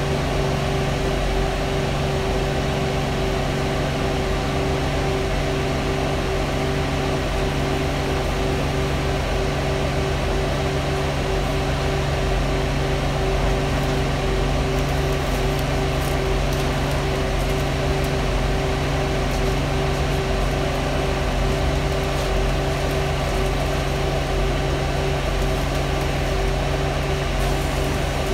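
Loud cabin ventilation fan on a bus, a steady unbroken whirr with a constant hum, over the running bus.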